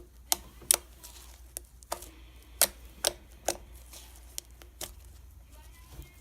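Fluffy slime being kneaded by hand, giving a run of sharp, irregularly spaced pops and clicks as air pockets burst.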